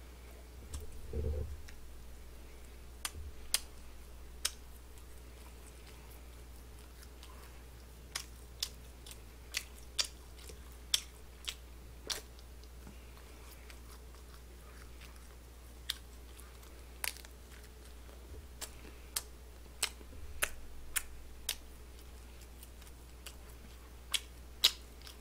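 A person chewing a mouthful of glazed chicken skewer close to the microphone. There is a bite about a second in, then slow chewing with a couple of dozen short, sharp clicks scattered irregularly.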